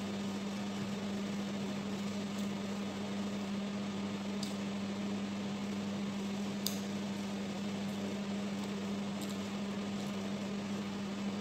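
Steady electrical hum with an even hiss over it, from a running appliance. Two faint, sharp clicks break through, about four and a half and nearly seven seconds in.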